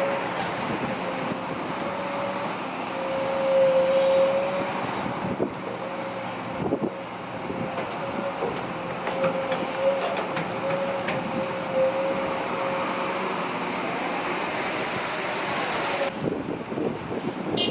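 Hydraulic excavator running, with a steady, slightly wavering high whine and a few short knocks and clanks.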